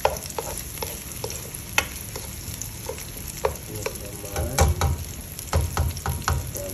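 Chopped red onion and garlic sizzling in oil in a nonstick wok, stirred with a spatula that clicks and scrapes against the pan. The tapping comes thicker and louder in the second half.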